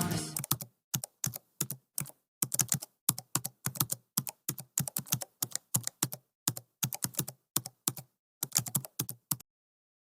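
Keyboard typing: short sharp key clicks in quick irregular runs, several a second, stopping about nine and a half seconds in.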